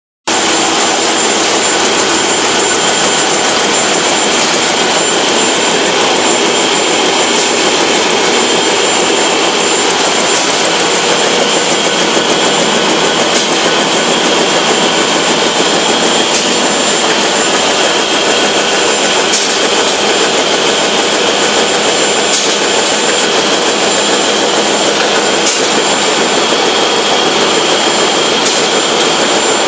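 Fameccanica FNL sanitary napkin production line running: a loud, steady machine noise of air rush and mechanical clatter, with a steady high whine.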